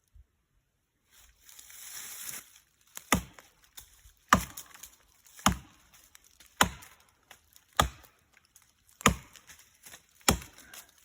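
Axe chopping into a tree trunk: seven heavy, evenly spaced blows a little over a second apart, starting about three seconds in, after a brief scraping rustle.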